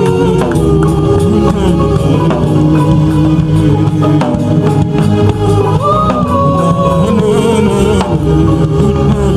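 Live gospel music: singing or a held melody line over drums and tambourine-like percussion, with the melodic phrase coming round again about six seconds in.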